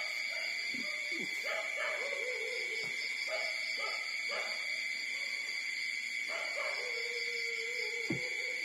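Newborn puppies whimpering while nursing: a string of short, high squeaky whimpers, then one longer whine of over a second near the end. A steady high-pitched tone runs underneath.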